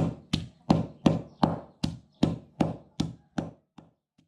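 Knife chopping rapidly on a chopping board, about three even strokes a second, mincing lemongrass and galangal into a Northern Thai herb and chili paste. The strokes fade and stop a little before the end.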